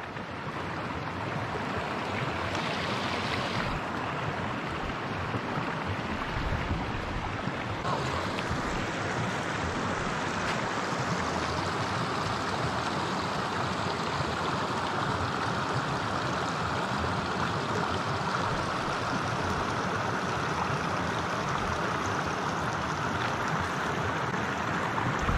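A small mountain creek flowing steadily, an even rush of water.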